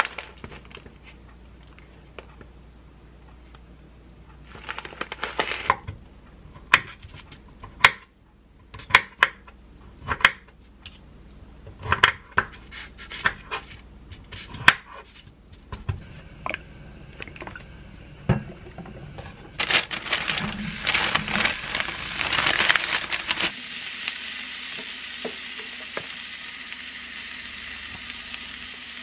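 Sharp clicks and taps of a knife and kitchen scissors cutting cubed radish kimchi (kkakdugi) on a paper-covered wooden cutting board. From about twenty seconds in, the kimchi sizzles steadily as it is stir-fried in a frying pan, with a spatula stirring through it.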